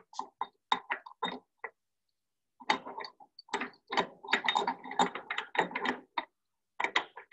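Metal clicking and clinking of a fuel injection pump drive gear and its flange being turned by hand and worked into place on a diesel engine's timing case. The clicks come in irregular runs, pause briefly about two seconds in, then come thick and fast through the middle.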